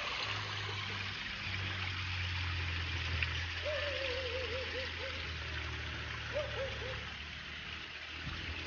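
A hill stream running steadily as its water comes down from above, an even rushing sound, with a steady low hum underneath. Short runs of repeated rising-and-falling notes come twice near the middle.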